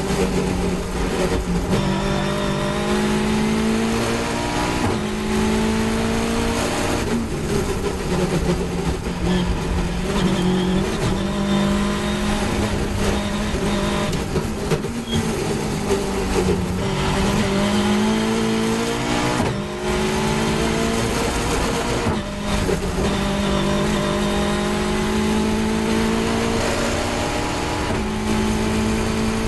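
Caterham 420R's Ford Duratec 2.0-litre four-cylinder engine at racing speed, heard on board. Its note rises under acceleration and drops sharply at each gear change and braking point, over a steady rush of wind.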